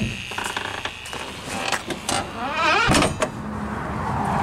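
Truck door hinges creaking as the door swings, then the door shutting with a thud about three seconds in.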